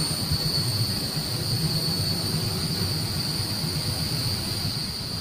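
Insects droning steadily at one high pitch, over an uneven low rumbling noise.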